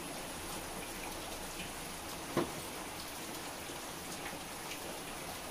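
Kappa dosa cooking in coconut oil on a hot pan: a steady, soft sizzle with small crackling pops, and a single sharper tap about two and a half seconds in.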